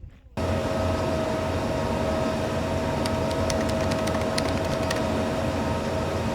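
A steady motor-driven whir, like a fan, with a constant mid-pitched whine and a low hum. It switches on abruptly just after the start, and a quick run of light clicks comes about three to five seconds in.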